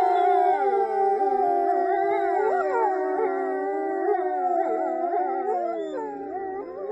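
Several wolves howling together in overlapping voices that hold and glide up and down, joined at first by a woman howling through cupped hands. The chorus grows a little quieter near the end.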